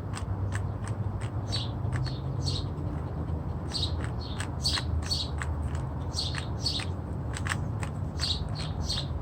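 Plastic Rubik's cube being turned quickly by hand in a speed solve: irregular sharp clicks and clacks, two to three a second, over a steady low hum.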